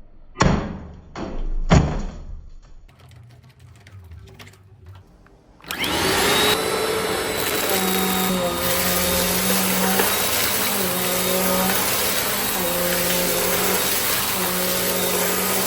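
Three knocks, then a Bissell CleanView compact vacuum cleaner switches on suddenly about five and a half seconds in and runs steadily. A low hum in its sound comes and goes every couple of seconds.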